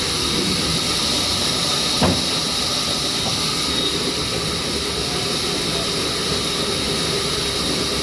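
Steady hiss and whine of sawmill machinery running, with a single knock about two seconds in, as of a log being set down.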